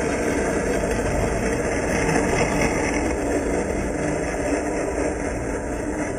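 A 16mm-scale model of an O&K MD2 locomotive, 3D-printed, hauling skip wagons on a garden railway, running past and away along the track. It makes a steady mechanical running noise that fades slightly toward the end.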